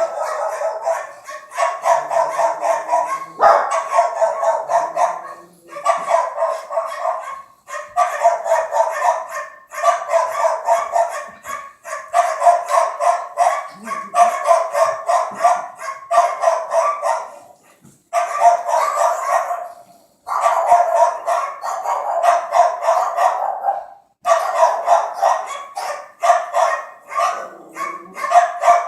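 Recorded dog-barking sound effect played through a speaker: rapid barks in runs of about two seconds, separated by short gaps and repeating over and over like a loop.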